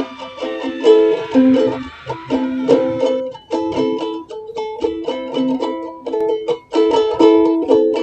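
Light background music of quickly plucked strings in a bouncy, rhythmic pattern. A hissing sound fades out over the first couple of seconds.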